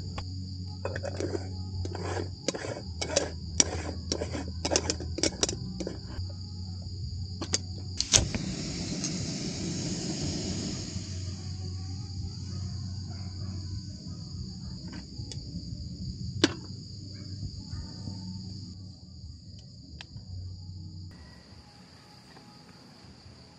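Crickets chirping steadily over lo-fi background music, with a run of small clicks and knocks in the first few seconds. About eight seconds in, a sharp click and a rush of gas hiss come as a portable butane canister stove is lit under a moka pot.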